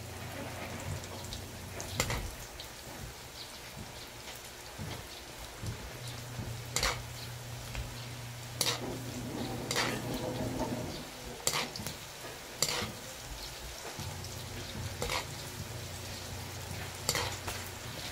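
Chicken intestines (isaw) deep-frying in hot oil in a metal wok, a steady sizzle. A wire spider strainer stirs them, with sharp clinks against the wok now and then.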